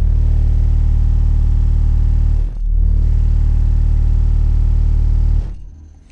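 A pair of Skar Audio SDR subwoofers playing a steady, very loud 38 Hz test tone (a bass "burp") at around 1,000 watts into 1.2 ohms, reaching about 135 dB on the meter. The tone dips briefly about two and a half seconds in, comes back, and cuts off about five and a half seconds in.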